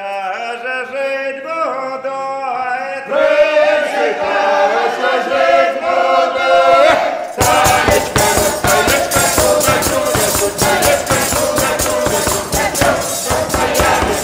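A small folk ensemble sings a traditional Belarusian song in several voices, with more voices joining about three seconds in. Around the middle a large frame drum with jingles comes in with fast, steady beats under the singing.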